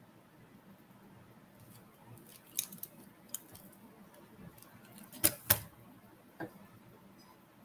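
Handling of a zippered pencil pouch full of stationery: a few light clicks and rattles, then two loud sharp knocks in quick succession just past five seconds and one fainter click after.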